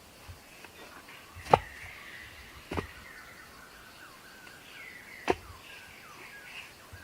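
Three sharp knocks, unevenly spaced, the first the loudest, over faint chirping birds.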